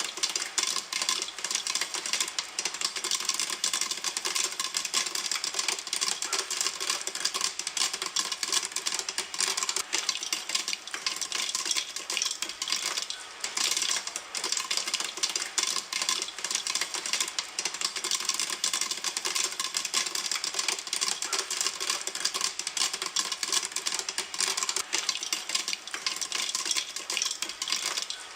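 Popcorn popping in a pan: a dense, continuous crackle of many small pops, steady throughout.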